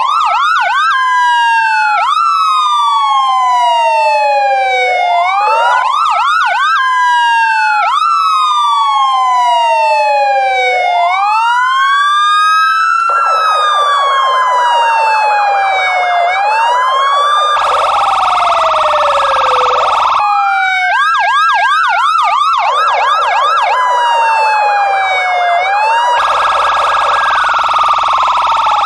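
Loud electronic police siren sounding continuously. It switches between slow wails that fall and rise over a few seconds, short runs of quick yelps, and a very fast trilling warble.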